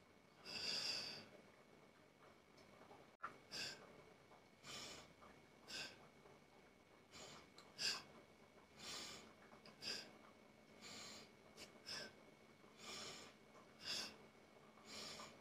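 A man's short, forceful breaths, about one a second, in rhythm with the reps of a biceps curl set.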